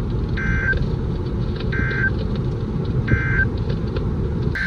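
Three short EAS end-of-message data bursts about a second and a half apart, the digital tones that close an alert, then a longer data burst starting near the end that opens the next alert's header. Underneath, the steady low rumble of a car driving.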